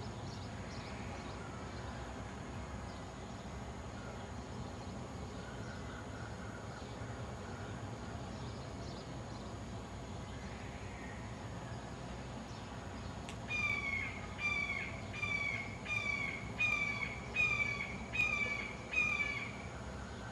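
Red-shouldered hawk calling: a series of about eight clear, slightly down-slurred screams, one every two-thirds of a second or so, starting about two-thirds of the way in. Before that, only faint steady background hiss.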